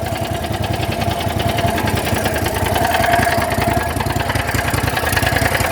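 Small garden-tractor engine running at a steady idle, with an even rapid firing rhythm and a faint steady whine over it.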